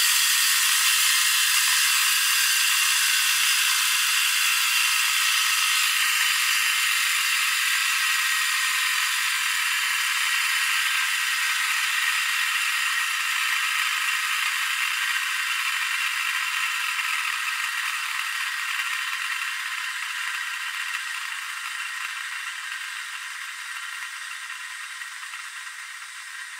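Two metal ECUBEE fidget spinners whirring and rattling on their ball bearings, played back four times fast so the sound is high and hissy. It fades slowly as they spin down. The rattle comes from one spinner's noisier bearing, which the owner judges to be not very good.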